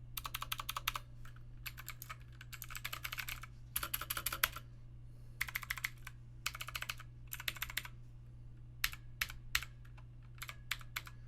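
Typing on a mechanical keyboard fitted with PBT double-shot pudding keycaps: short bursts of rapid keystrokes, thinning to single key presses near the end.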